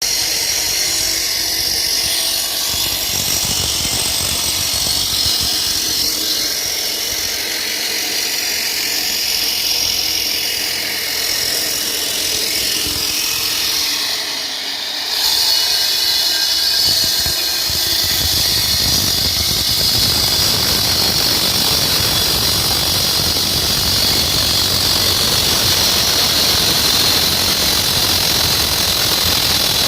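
Concrete cutting machine running with a diamond cutting tool grinding through concrete, a steady high-pitched squeal over the motor's noise. About halfway through it eases off for a moment, then comes back louder and fuller.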